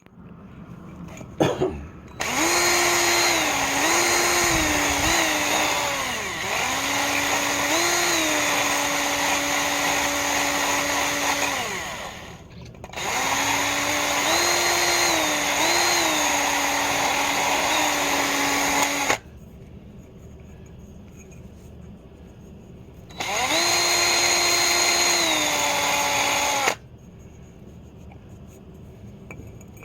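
Handheld electric power tool motor running in three long bursts, its speed stepping up and down as the trigger is eased and squeezed, with quieter pauses between the runs.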